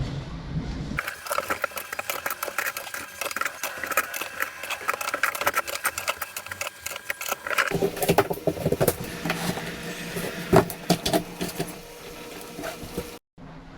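Turbine blades being handled and fitted one by one onto the hub, giving a busy run of clicks, taps and rattling clatter as the parts knock together.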